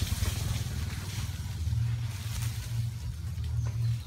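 A low rumble that settles into a steadier low drone about halfway through.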